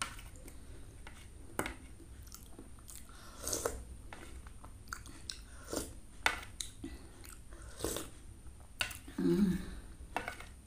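Eating kolak from a ceramic plate with a metal spoon: sharp clinks of the spoon against the plate every second or two, with chewing in between, and a short low hum about nine seconds in.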